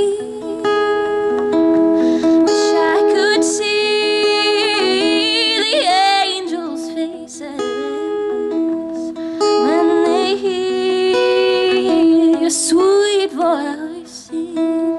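A singer's voice, with wavering held notes, accompanied by a strummed and plucked acoustic guitar in a worship song.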